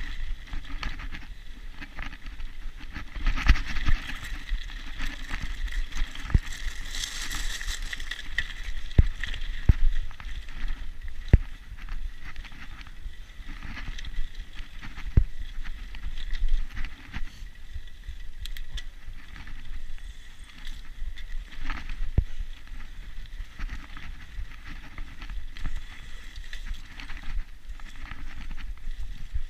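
Mountain bike riding along a dirt trail: a steady low rumble from the tyres and ride, with irregular sharp knocks and rattles as the bike goes over bumps.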